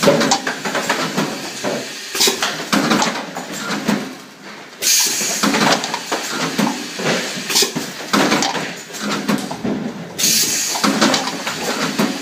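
Automatic plasticine cup capping machine running with steady rattling and clatter, and a sharp burst of air hiss from its pneumatic cylinders about every two and a half seconds as each cycle repeats.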